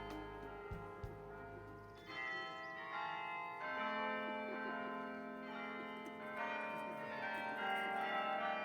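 Carillon bells of the Bok Singing Tower playing a slow melody: several bells struck together in groups every one to three seconds, each stroke ringing on and overlapping the next.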